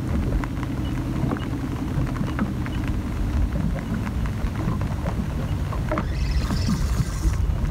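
Wind buffeting the microphone in a steady low rumble, with light ticks scattered through it.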